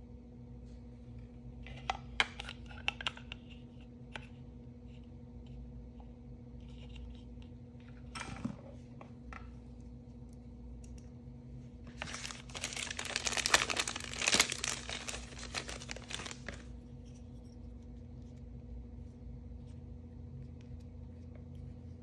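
Thin plastic wrapper crinkling and tearing for about four seconds as a small blind-bag packet is opened by hand. Near the start there are a few light clicks as small plastic toy figure parts are handled, and a faint steady hum runs underneath.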